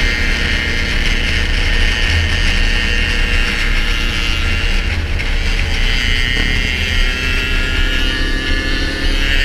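Sport quad's engine running steadily at road cruising speed, with heavy wind rumble on the helmet-mounted microphone.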